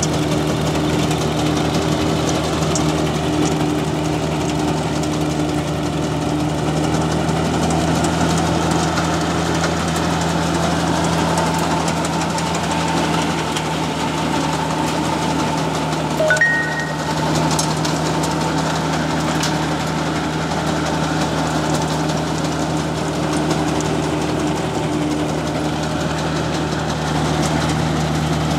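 Tractor engine running steadily under load, driving a PTO-powered peanut picker machine as it digs and sieves through the soil. A brief squeak comes about halfway through.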